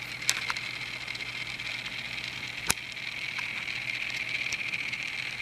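Tiny 1/1000-scale electric train set running: a steady high-pitched whir from its small electric drive, with a few light clicks and one sharper click about two and a half seconds in.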